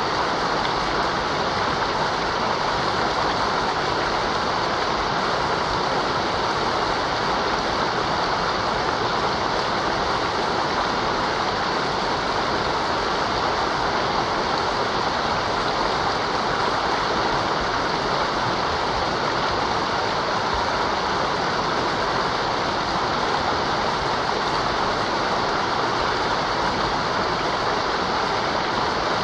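A mountain river rushing over rocks: steady, full water noise with no change.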